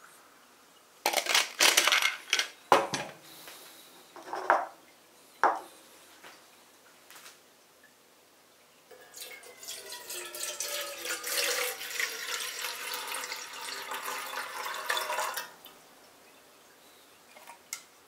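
A few sharp metal clinks and knocks in the first few seconds, then hot water poured into a stainless steel Hario gooseneck drip kettle for about six seconds, its pitch shifting as the kettle fills.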